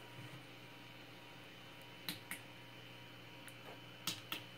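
Sharp clicks of the Anet A8 3D printer's control-panel buttons being pressed while stepping through its LCD menu, in two quick pairs about two seconds in and near the end. Under them runs a steady low electrical hum from the powered-on printer.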